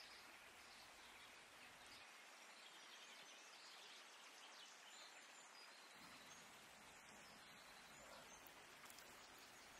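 Near silence: faint steady hiss of background room tone.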